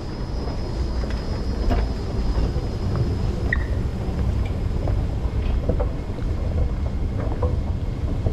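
Steady low rumble of a running escalator in an underground metro station, heard while riding it down, with a faint steady high whine and scattered light clicks and knocks.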